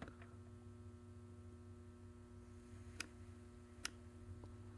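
Near silence: a steady low electrical hum, with two faint clicks about three and four seconds in.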